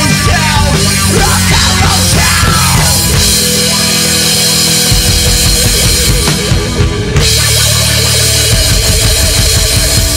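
Rockabilly/psychobilly band playing live: a full drum kit with electric guitars, played loud and fast, with gliding guitar lines in the first few seconds.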